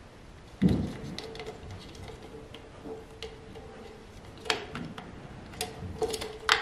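Red plastic cup being handled while a rubber band is threaded through a hole in its rim and knotted: a sharp plastic knock about half a second in, then scattered clicks and crinkles, louder again near the end.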